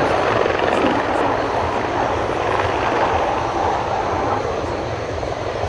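The twin Honeywell F124 turbofans of an Aermacchi M-346 jet trainer in a display flight overhead: a steady jet rush with no distinct pitch, easing off slightly near the end.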